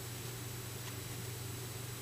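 Steady low hum with faint hiss: room tone, with only a very faint tick about a second in.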